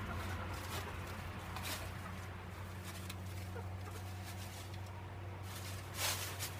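Chickens foraging in compost bedding: scattered scratching and pecking clicks, with a louder rustle about six seconds in, over a steady low hum.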